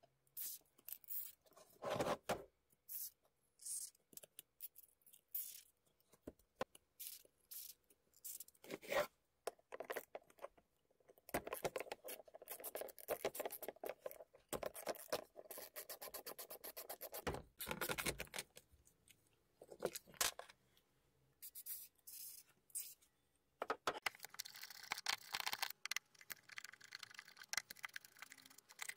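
Hand work on a power mixer's plastic handle and aluminium gear housing: scrapes, knocks and clicks of a screwdriver and of parts being handled on a wooden bench. In the middle there is a long run of fast clicks as the handle screws are turned out, and near the end there is a stretch of scraping.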